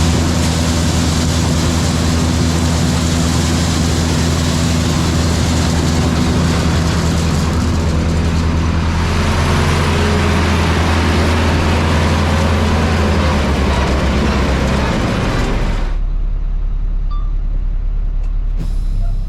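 Heavy farm machinery engine running steadily under a loud rushing noise. The rushing stops abruptly about three seconds before the end, leaving a low engine hum.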